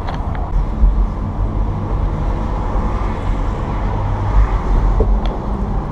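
Steady low rumble of a Chevrolet Corvette Stingray convertible driving with the top down: wind, road and engine noise heard from the open cabin.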